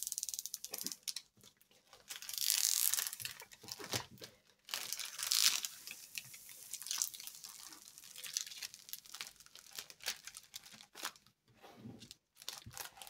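Clear plastic protective film on a diamond-painting canvas crinkling and rustling under the hands as it is pressed and smoothed, in uneven rustles with the loudest crackles about two and a half and five and a half seconds in.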